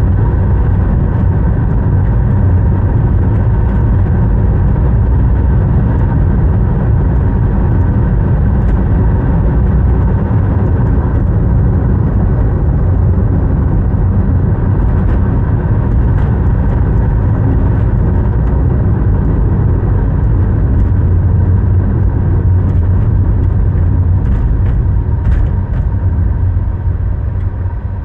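A car driving along a road: steady, low road and engine noise that dies down near the end as the car slows.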